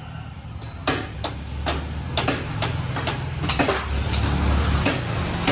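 Sharp tapping knocks, about two a second, over a steady low hum.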